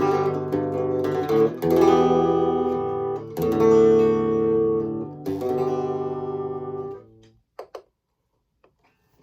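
Fender Stratocaster electric guitar playing strummed chords, clean tone. A new chord is struck three times, and each one rings on until the strings are muted about seven seconds in, leaving only a few faint clicks.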